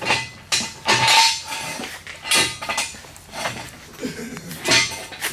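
Metal tools and hardware clanking and clinking in a series of sharp knocks, one about a second in ringing briefly, as work goes on fitting a bracket lift to a UTV's rear suspension.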